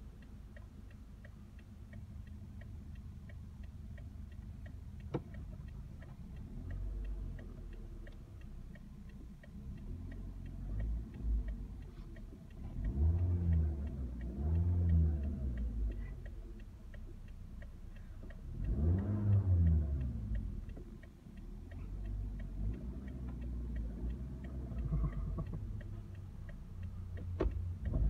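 2009 Toyota Corolla LE's 1.8-litre four-cylinder engine idling, then revved in neutral: two short revs about halfway, a longer one a few seconds later and smaller ones near the end, each rising and falling in pitch. A steady ticking from the turn-signal relay runs underneath.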